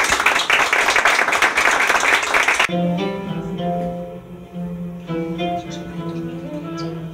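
An audience applauding for the first few seconds, cut off abruptly by the film's soundtrack: plucked-string music with a steady low note under a slow melody.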